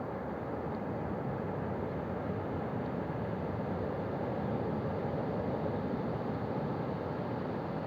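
Ocean surf on a beach: a continuous rushing of waves breaking and washing in, swelling slightly about halfway through.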